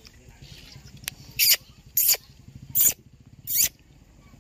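Gray langurs squealing: four short, shrill squeals, evenly spaced a little under a second apart, over a faint low background rumble.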